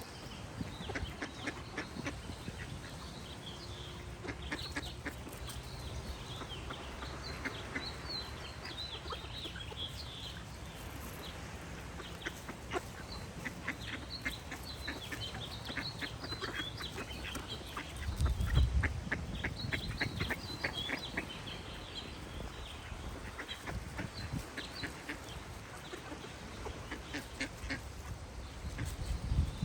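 Ducks quacking repeatedly while small songbirds chirp and sing throughout. Two brief low rumbles stand out, about two-thirds of the way through and near the end.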